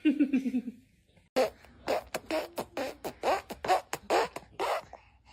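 A young child making short, sharp mouth sounds and syllables, about two a second, after a brief falling vocal sound at the start.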